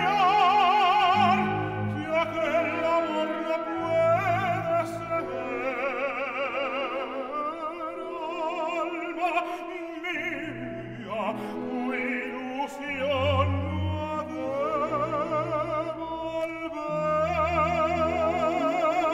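Zarzuela duet for soprano and tenor: operatic voices singing with wide vibrato over a full symphony orchestra led by strings.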